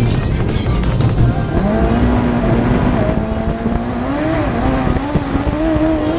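Engine of the MiniBusa autocross prototype heard from on board at speed, its note climbing slowly through a gear. A quick run of sharp clatters sounds in the first second.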